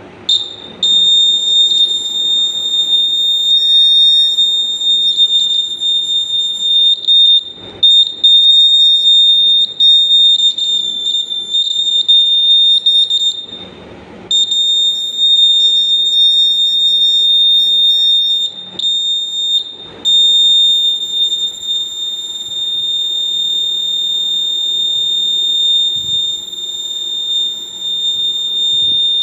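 Small piezo buzzer sounding one loud, steady, high-pitched tone. It starts just as a clip lead is connected, then cuts out briefly a few times, most clearly about 14 seconds in and again around 20 seconds.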